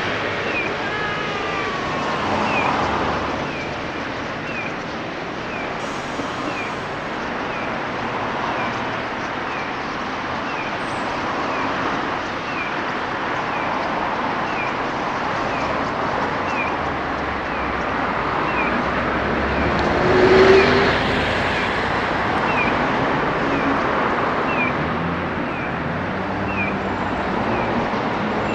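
Steady road-traffic noise, with a short, high, falling chirp repeating about once a second over it. A brief louder swell comes about twenty seconds in.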